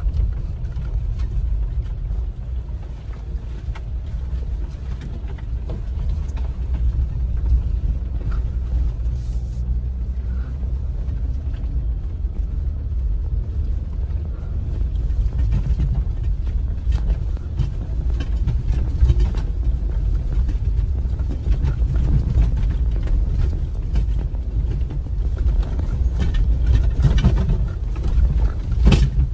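Vehicle driving over a sandy dirt track, heard from inside the cabin: a steady low rumble of engine and tyres, with scattered knocks and rattles that come thickest near the end.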